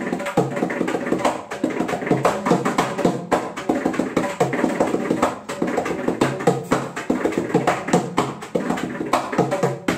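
Mridangam played by hand: a fast, unbroken run of strokes, its tuned head ringing at a steady pitch under the sharp taps.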